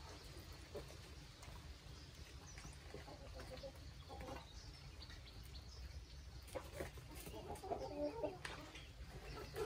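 A flock of chickens clucking in short broken calls as they feed, busiest about eight seconds in, with scattered short clicks.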